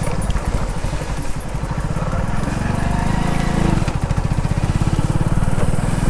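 Motorcycle engine running while being ridden, its note rising for about a second midway and then dropping back.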